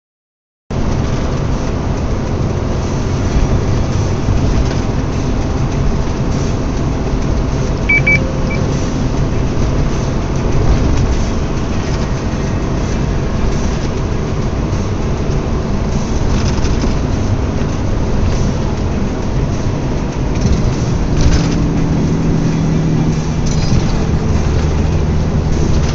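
Car engine and road noise heard from inside the cabin while driving, a steady low rumble. A brief high double beep sounds about eight seconds in, and a lower steady hum comes up near the end.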